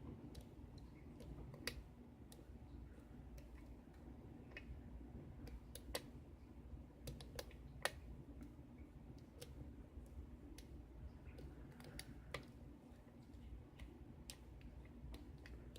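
Faint, irregular small clicks of a lock pick and tension wrench working the pins of a six-pin pin-tumbler lock, pins being lifted and set one at a time.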